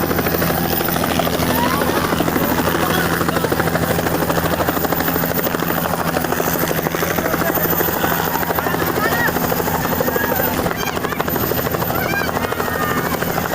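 Helicopter running loudly, with a rapid, even rotor chop over a steady engine hum.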